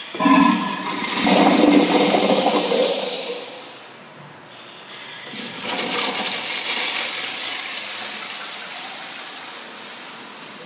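Two urinals flushed one after the other. The first starts sharply at the very beginning and rushes loudly for about four seconds; the second starts about five seconds in and slowly fades away.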